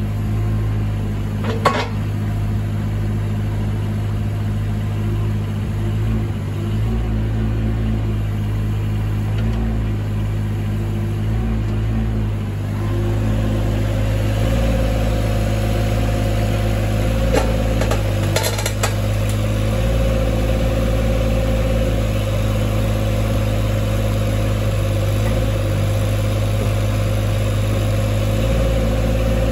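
Volvo EC18C mini excavator's diesel engine running steadily while the boom and arm are worked and the upper structure slews. A steady higher whine comes in about halfway through, and there are a few sharp clanks near the start and around two-thirds of the way through.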